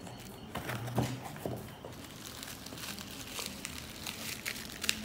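Bubble wrap around a boxed phone crinkling and crackling as hands handle it and work it open; the crackles come thicker in the second half.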